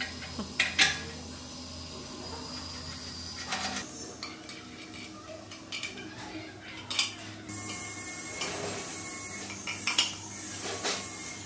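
Scattered sharp metal clinks and knocks of an open-end spanner and steel parts while a motorcycle brake master cylinder and pedal are bolted to the frame, over a low steady hum.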